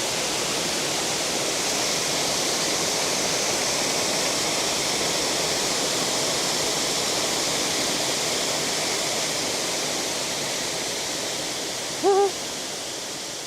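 Waterfall rushing: a steady roar of falling river water that eases off over the last few seconds.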